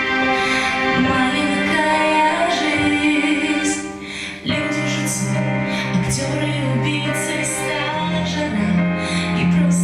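A song with a woman singing over sustained accompaniment, in long held notes without clear lyrics. The music dips briefly about four seconds in and comes back in fuller, with low held notes.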